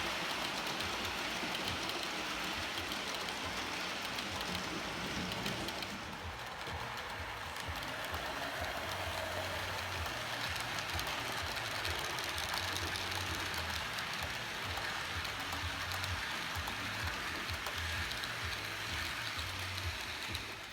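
H0-scale model train running along the track, a steady rolling noise of its wheels on the rails with a low rumble underneath.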